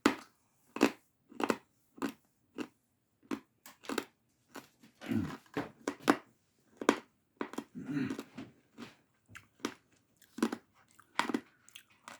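Crunchy chicharrones being chewed close to the microphone: a run of sharp, irregular crunches, about one or two a second, that sound like popping rocks in the mouth.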